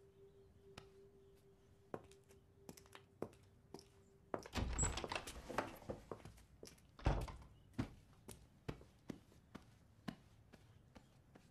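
A string of light knocks and clicks in a small room, with heavier dull thumps about four and a half seconds in and again about seven seconds in. A faint steady tone sounds under the first four seconds.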